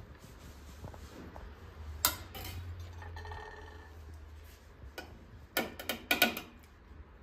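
Light clicks and clinks of kitchen things being handled on a counter: one sharp click about two seconds in, then a cluster of clinks between about five and six and a half seconds in, over a faint low hum.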